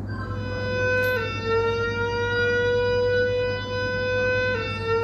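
Building fire alarm sounders giving a steady electronic alert tone between voice evacuation messages during a fire alarm test. The tone dips slightly in pitch about a second in and again near the end.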